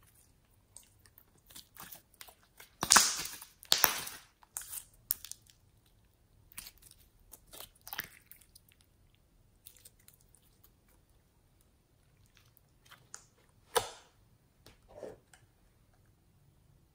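Clear slime mixed with small beads being squeezed and stretched by hand, giving bursts of crackling, popping clicks that are loudest about three to four seconds in. Two sharp single clicks come near the end.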